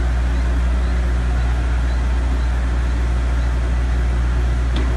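Engine-driven construction machinery running steadily with a constant low hum, with one short click near the end.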